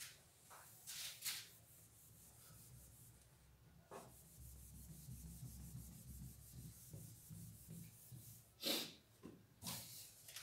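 Faint rubbing and scratching sounds: a few brief scratchy strokes about a second in and twice near the end, over low room noise.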